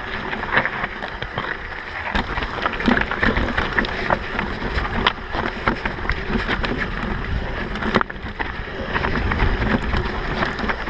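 Mountain bike riding fast down a rough dirt trail: wind buffeting the microphone with a steady rumble, and frequent clicks, knocks and rattles from the bike jolting over bumps.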